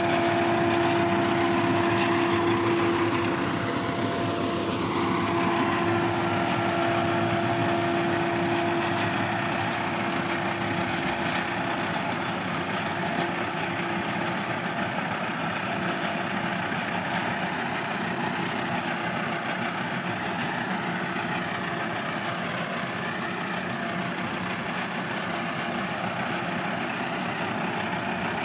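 Forage harvester running under load while chopping barley, heard from inside its cab: a steady engine and machinery drone. A steady whine sits over it for the first several seconds, then fades out.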